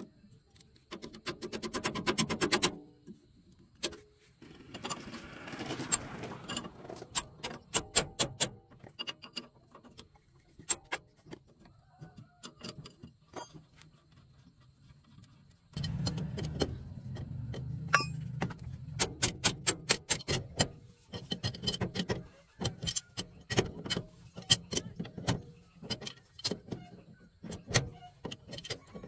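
Metal clinks and scrapes of hand tools on a truck's steering tie-rod end and front suspension, as pliers and a wrench are worked on the fittings. There are irregular sharp clicks throughout, with stretches of rustling and scraping handling noise in between.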